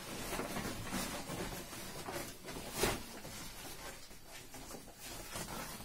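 Plastic sack rustling and crinkling as a hand rummages inside it, in uneven bursts, with one louder crinkle about three seconds in.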